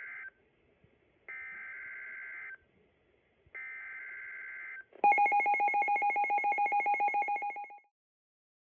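NOAA Weather Radio alert signal: three bursts of about a second each of the SAME digital header data tones that encode an alert, a second apart. They are followed by a loud, rapidly pulsing alert tone lasting nearly three seconds, which then cuts off.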